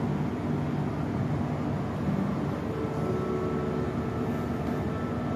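Steady low rumble of an aquarium hall's background noise, with faint voices mixed in.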